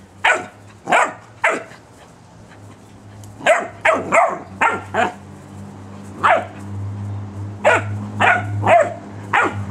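Young puppy barking at a squeaky toy ball: about a dozen short, high yaps, each dropping in pitch, coming in uneven bunches.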